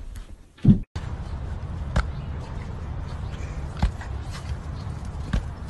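A single loud thump as a cat lands from a leap. Then comes a steady low rumble with three dull thuds about a second and a half apart.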